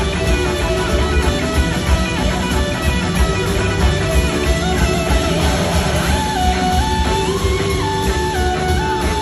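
Live band with a lead electric guitar solo on a red Gibson SG: long sustained notes step up and down in pitch over drums and the rest of the band.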